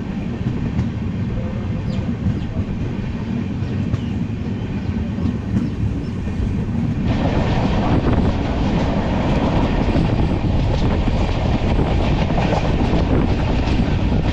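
Express train heard from an open window of a moving coach: steady rumble of wheels on the track with faint clicks. About seven seconds in, the rushing noise suddenly grows louder and brighter, with wind on the microphone.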